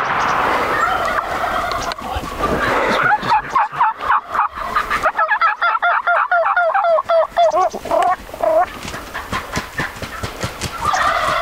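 Wild turkey toms gobbling, several gobbles overlapping. One long rattling gobble comes about five seconds in, and another starts near the end.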